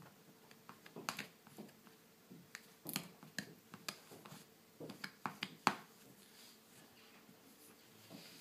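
Squeegee pushed hard across a wet film screen protector on a tablet screen, working out stubborn air bubbles. It makes irregular short scrapes and clicks for about six seconds, then goes quieter.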